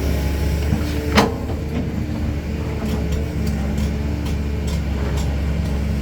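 Heavy construction machine's diesel engine running steadily, with one sharp knock about a second in and a few lighter clicks later.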